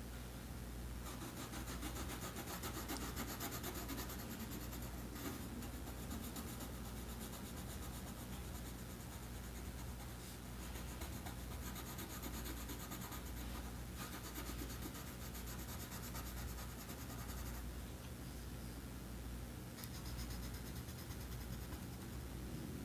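Colored pencil pressed hard and scratching across paper in rapid back-and-forth shading strokes, filling in an area with colour. The strokes come in spells broken by short pauses.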